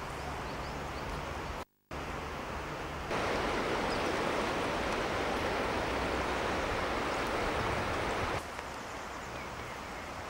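A fast mountain river flowing over a stony bed: a steady, loud rush of water for about five seconds in the middle. Before and after it there is a quieter, even outdoor hiss, broken by a brief moment of silence about two seconds in.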